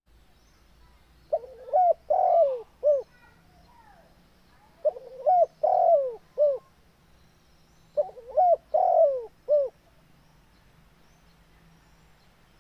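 Spotted dove cooing: three phrases a few seconds apart, each a quick run of about four coos with a longer coo in the middle. Faint chirping of small birds in the background.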